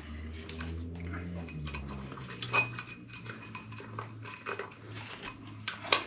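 Steel tire levers clinking and scraping against a 10-inch electric scooter wheel rim while a tubeless tire is being levered onto it, with a handful of sharp metallic clicks, the loudest near the end.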